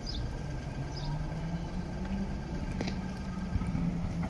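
Konstal 13N tram moving slowly along the track, a steady low hum among street traffic, with a couple of sharp clicks about three seconds in.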